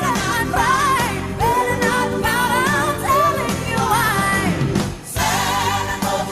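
A pop-style song with a sung lead melody over full band accompaniment, which drops out briefly about five seconds in.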